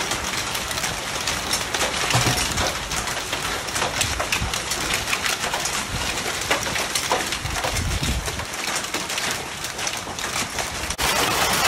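Rain falling steadily on a concrete patio and outdoor furniture, a dense pattering of many small taps. Near the end the sound changes abruptly to a louder downpour.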